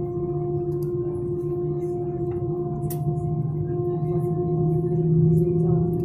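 Airliner's jet engines at idle heard inside the cabin during taxi: a steady droning hum with several steady tones in it, swelling slightly about five seconds in, with a few faint ticks.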